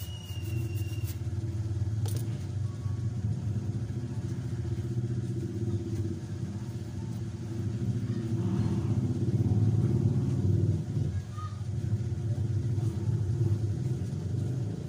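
Low, uneven engine rumble of a motor vehicle running, swelling louder around the middle.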